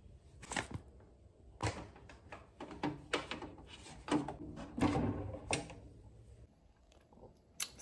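Kitchen handling noises as a bread maker and a paper packet of bread mix are handled: a series of short knocks and clicks with some paper rustling, ending about six and a half seconds in.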